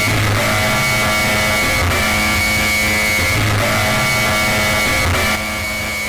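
Heavily distorted electronic alert tone for a mock earthquake alarm, looping. A few steady pitches over a harsh, noisy buzz break off and restart about every second and a half.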